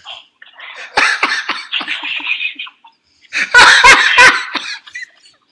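People laughing hard in two bursts, the second, about three and a half seconds in, the louder.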